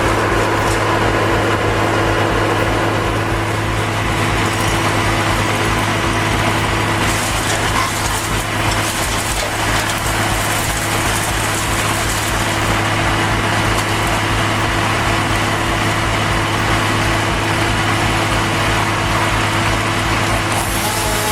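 A heavy machine's engine running steadily at a constant pitch, with brief rushes of higher-pitched noise about seven and ten seconds in.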